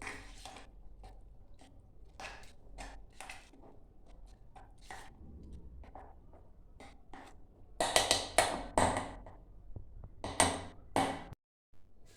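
Spoon clinking and scraping against a mixer jar as cake batter is beaten by hand, in scattered taps at first, then faster and louder strokes in the second half.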